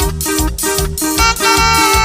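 Brass band playing a chilena over a steady, repeating bass line. The melody drops out briefly, with a couple of drum hits filling the gap, and the horns come back in about two thirds of the way through.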